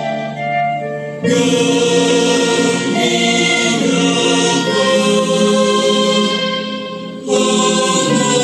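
Background music: a choir singing a Hindu devotional song to Ganesha in long held notes, with new phrases coming in about a second in and again near the end.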